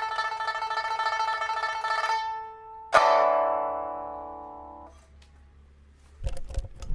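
Pipa, a 1980s Shanghai instrument of Siamese rosewood freshly refitted with a new soundboard and frets, playing held notes in rolled tremolo that fade about two seconds in. A single loud struck chord follows and rings for about two seconds before it is damped off. A few low thumps come near the end.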